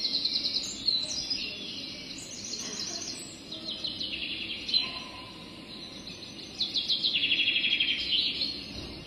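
Birds chirping in quick trilled phrases, one after another, loudest at the start and again from about seven seconds in.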